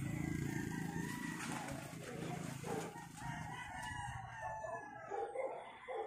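A bird calling, in drawn-out calls that rise and fall in pitch through the second half. A low engine hum fades out in the first second or two.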